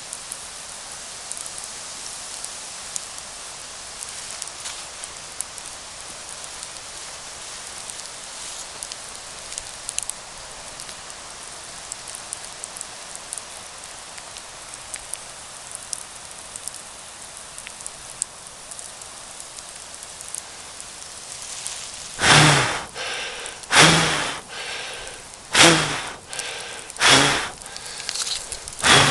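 Campfire burning with a steady hiss and fine crackling. About three-quarters of the way through, a series of loud rushing bursts starts, coming about every second and a half.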